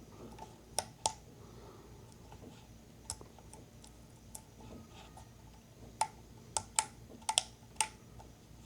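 Sharp mechanical clicks from a Pentax K1000 35mm film camera being handled after loading: two about a second in, one near three seconds, then a quick run of about six toward the end.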